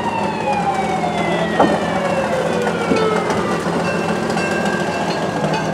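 Mechanical siren on an antique fire engine, winding down: one tone falling slowly in pitch for about three seconds after a quick rise. A sharp knock about a second and a half in, and a steady higher tone sounds for the last couple of seconds.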